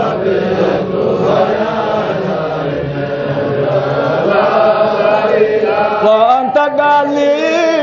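Group of men chanting a Sufi Qadiriyya dhikr together in rhythm. One voice stands out more clearly near the end.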